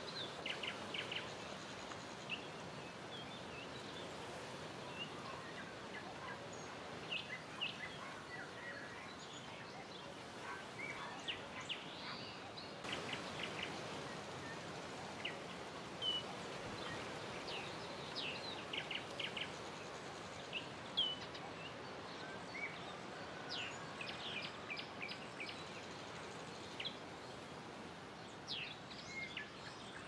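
Small songbirds chirping and singing in short, scattered high calls over a steady rush of wind through foliage.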